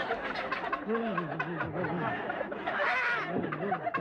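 Studio audience laughing, many voices at once, with a high-pitched cry rising out of the laughter about three seconds in.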